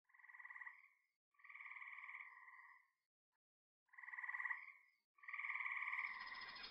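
A frog calling four times, each call a pulsed croak about a second long. Near the end a steady outdoor hiss of background noise comes in.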